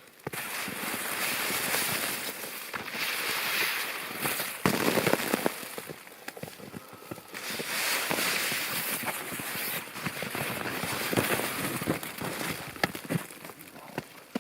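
Crackling, rustling noise of pushing through snow-laden brush under an umbrella: branches and snow brushing and scraping against the umbrella, with footsteps in the snow. It comes in several swells, with a louder stretch about five seconds in.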